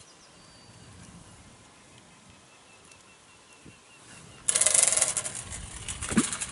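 Feeder rod being cast: faint bird chirps, then about four and a half seconds in a sudden loud whir of line running off the spinning reel's spool, with a short low thump about six seconds in.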